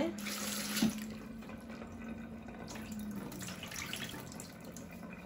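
Kitchen tap running into a plastic bowl in a stainless steel sink as peeled shrimp are rinsed, then the rinse water poured out of the bowl into the sink. A short knock about a second in.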